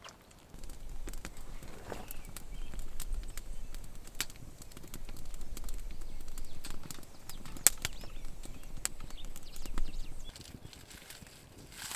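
Gusty wind buffeting the microphone, starting about half a second in and easing off near ten seconds, with flapping and scattered sharp clicks.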